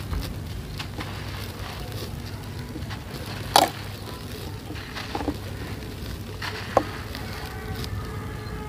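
Dry, gritty sand-cement pots crushed and crumbled by hand, with a steady gritty crunching and grit pouring through the fingers. A sharp crack comes a little past three and a half seconds in, and smaller cracks follow about five and seven seconds in.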